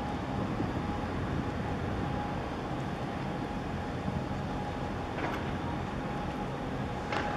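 Steady low rumble of a large container ship under way close by, mixed with wind on the microphone. A faint steady hum runs under it, and there are a couple of brief clicks later on.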